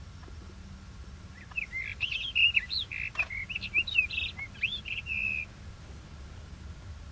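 Male rufous-tailed rock thrush singing one quick, warbled song phrase of varied whistled notes, starting about a second and a half in and lasting about four seconds.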